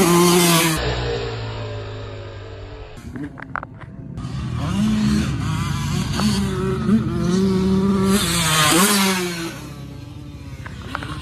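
Dirt bike engines revving up and down on a motocross track, heard across a few short clips cut together. Near the end one engine revs up sharply.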